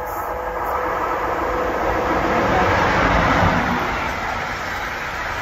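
A passing train: a loud rushing noise that swells to a peak a little past the middle and then eases off.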